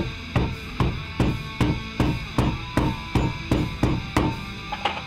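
Hammer blows in a steady rhythm, about two and a half a second and about a dozen in all, driving something into place, over background music.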